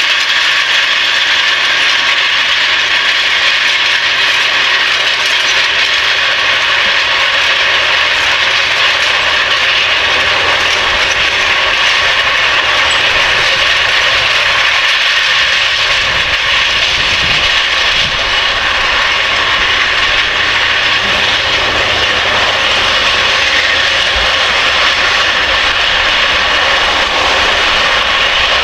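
Case Quadtrac 620 tracked tractor working a field with a Köckerling Vario cultivator and Brix roller: a loud, steady mechanical clatter from the running gear and implement. A deeper engine rumble comes up beneath it about halfway through.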